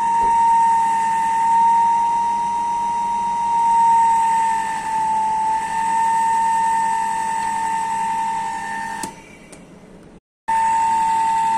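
Small three-phase induction motor running on a single-phase supply through a phase-control speed regulator, giving a steady high-pitched whine that wavers slightly in pitch. The whine fades about nine seconds in, breaks off briefly, and comes back near the end.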